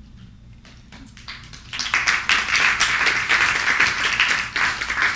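Audience applauding: a few scattered claps at first, swelling to full applause from about two seconds in, then dropping off at the end.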